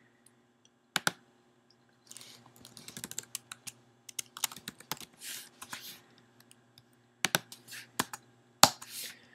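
Typing on a computer keyboard: a quick run of keystrokes from about two to six seconds in, with a few single sharp clicks before and after it.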